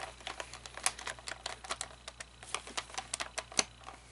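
Irregular small clicks and taps of hard plastic parts being handled, several a second with a louder click near the end.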